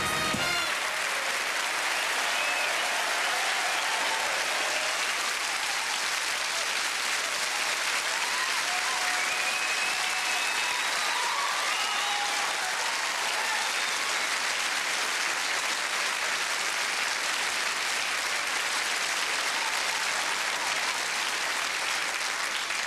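Studio audience applauding steadily and at length, with a few faint calls rising above the clapping midway through.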